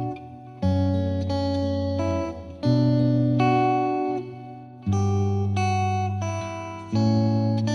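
Background music: guitar chords struck about every two seconds, each ringing out and fading before the next.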